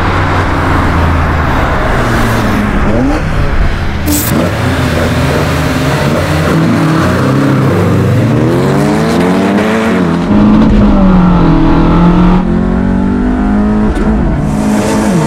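Car engines at full throttle, revving up and dropping in pitch again and again at the gear changes, louder for a couple of seconds about ten seconds in.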